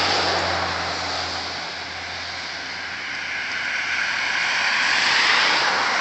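Road traffic on a wet, slushy street: a low engine hum that fades over the first two seconds, then a steady rushing hiss of tyres that swells about five seconds in.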